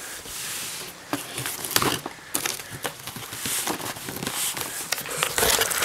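Packaging being torn open and crinkled by hand: an irregular run of sharp crackles and short rips.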